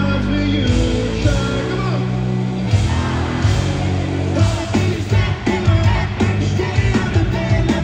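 Live pop-rock band playing in an arena, heard from the audience: electric guitars and drums with singing. Held chords ring for the first few seconds, then a driving drum beat comes in about three seconds in.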